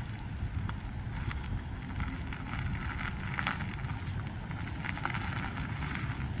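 Nissan Rogue SUV reversing slowly over cracked asphalt: a low, steady rumble of engine and tyres, with wind on the microphone and scattered light ticks from the tyres rolling over grit.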